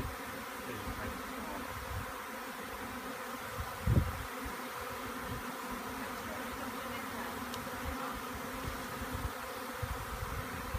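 A large swarm of honey bees buzzing with a steady hum close by. A brief low thump sounds about four seconds in.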